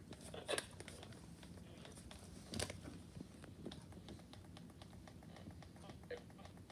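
Faint scattered clicks and rustling handling noise, with two louder short knocks about half a second and two and a half seconds in.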